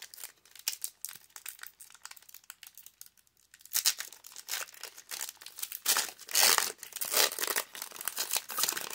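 Foil wrapper of a Pokémon trading-card booster pack crinkling as it is handled. From about four seconds in it crinkles and tears louder as the pack is ripped open and the cards are pulled out of the foil.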